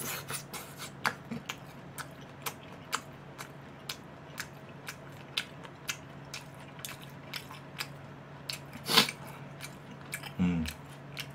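Someone chewing sauce-dipped fried chicken: short, sharp wet clicks and crunches at an uneven pace, about one or two a second, with a louder one about nine seconds in.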